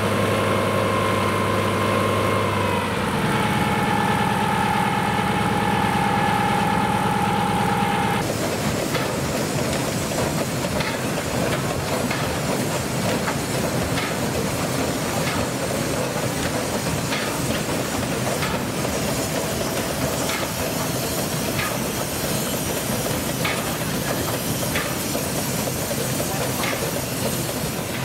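Old machinery running with a steady hum whose pitch steps down a little about three seconds in. About eight seconds in this gives way abruptly to a steady hiss with scattered sharp ticks.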